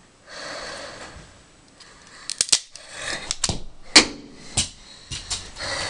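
Scotch Magic Tape being handled: a short rasp of tape pulling off the roll, a run of sharp clicks and snaps, and another rasp of tape unrolling near the end.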